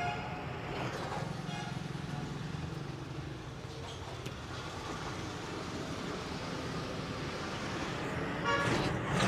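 Roadside traffic noise of passing vehicles, with a vehicle horn sounding briefly near the end.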